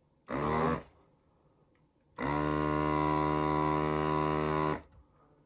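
Electric desoldering gun's vacuum pump running for about two and a half seconds, a steady buzzing hum that starts about two seconds in and cuts off, as it sucks molten solder from a capacitor lead hole on the motherboard.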